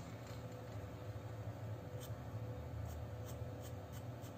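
Hard H-grade graphite pencil drawing short strokes on paper, a few faint scratches, over a low steady hum.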